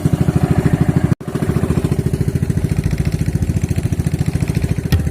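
Small fishing boat's engine running steadily with a fast, even chugging beat, cut off for an instant about a second in.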